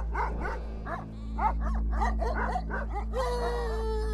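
Caucasian shepherd dogs barking rapidly, about four or five barks a second. About three seconds in, a single long drawn-out call holds its pitch for about a second, falling slightly at the end.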